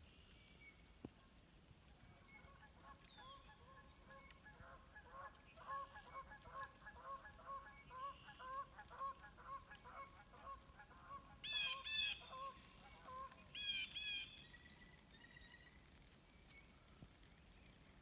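A flock of geese honking, many short overlapping honks for about ten seconds. Two louder, higher calls come about twelve and fourteen seconds in.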